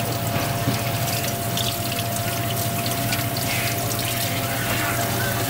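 Water running steadily in a kitchen sink, with a constant low hum and a thin steady tone underneath.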